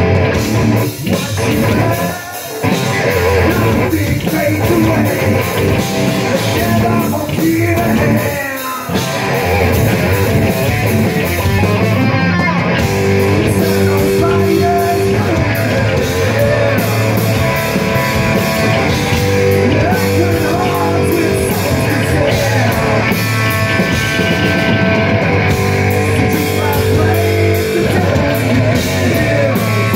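Live rock band playing loud: electric guitar, bass guitar and a drum kit, with a male singer. The music drops out briefly about two seconds in and again about nine seconds in.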